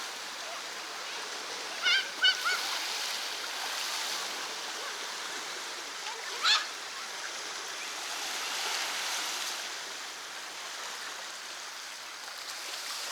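Steady rush of water at the shore, with a few short high-pitched calls rising above it: two about two seconds in and one about six and a half seconds in.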